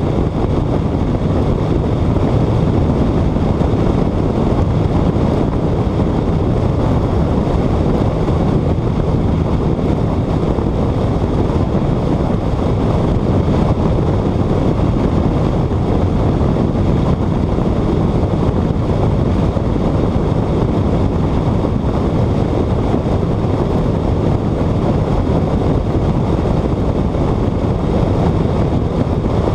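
A car at high speed on a race track: a steady rush of wind and road noise over the body and microphone, with the engine's low drone underneath.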